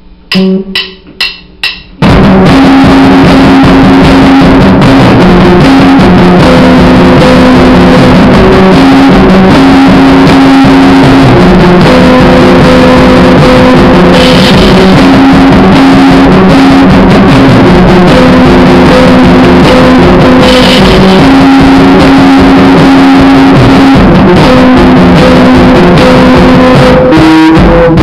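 Electric guitar and drum kit jamming loudly with held guitar notes. The jam kicks in about two seconds in after four quick clicks.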